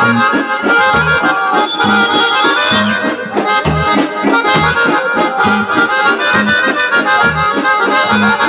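Accordion-led Balkan folk music, an instrumental passage with held chords over a steady low beat about once a second.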